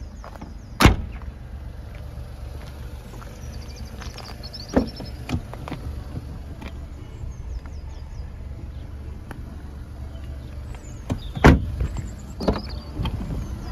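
A Volkswagen hatchback's tailgate and doors being shut: a solid thud about a second in, two lighter knocks near the middle, and the loudest thud near the end followed by a softer one, over a low steady rumble.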